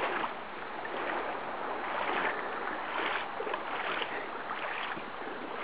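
Creek water running, a steady rushing with gentle swells.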